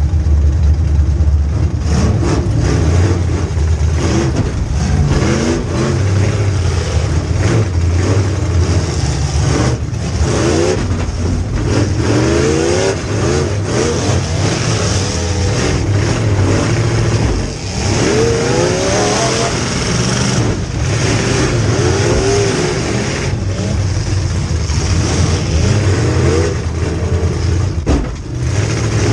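Demolition derby car's V8 engine revving up and down over and over, heard from inside the stripped car, with a few sharp bangs along the way.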